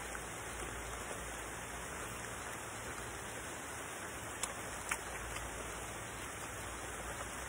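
Steady, even hiss of outdoor background noise, with two faint clicks about four and a half and five seconds in.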